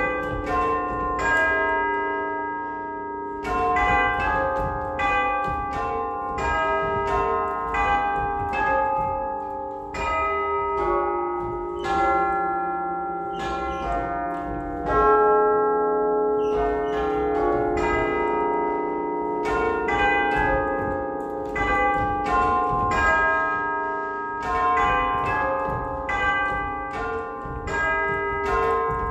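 A peal of eight tubular church bells, dating from 1849, struck one at a time to play a Christmas tune. It goes at roughly one or two notes a second, each note ringing on into the next.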